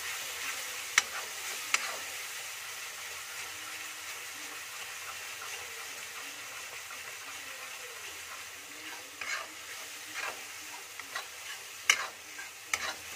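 Masala gravy sizzling in a kadhai while a metal spatula stirs and scrapes it, with sharp clicks of the spatula knocking against the pan twice near the start and several times near the end.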